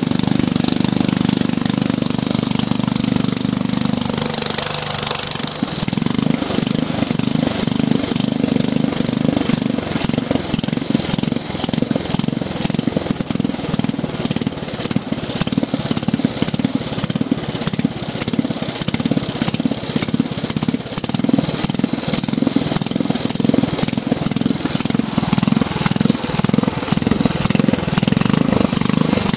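A 1979 Toro walk-behind lawn mower's small engine running. About five seconds in it dips briefly, then runs on with a regular pulsing of a few beats a second while the throttle lever is worked.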